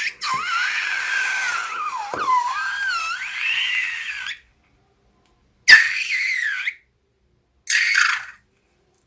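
Air squealing out of a rubber balloon's stretched neck: a long, wavering high-pitched squeal of about four seconds, then two shorter squeals near the end.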